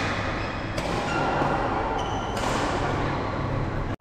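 Badminton hall ambience: rackets striking shuttlecocks a few times, with short squeaks of shoes on the court floor, over a steady low hum.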